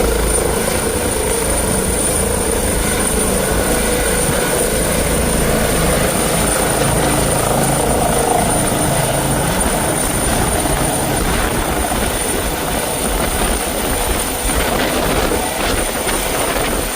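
Helicopter running close by, its rotors and turbine making a steady loud noise with a constant high-pitched whine.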